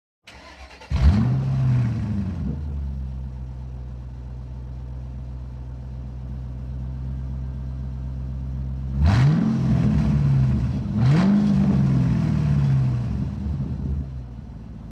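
A vehicle engine starting, catching with a rising flare about a second in, then idling steadily before being revved twice in quick succession near the end.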